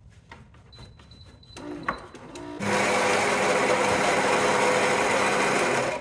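A few faint clicks, then about two and a half seconds in, a Gaggia Magenta Plus automatic coffee machine starts running with a loud, steady mechanical buzz and hiss that cuts off near the end.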